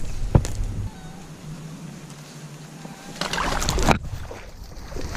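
Wind rumbling on an outdoor camera's microphone. There is a sharp knock about half a second in and a loud burst of rustling and handling noise about three seconds in that stops abruptly.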